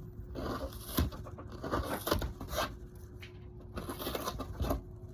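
A sharp pointed tool picking and scraping foam out of a drilled leash-plug hole in a surfboard: faint, irregular scratches and small clicks.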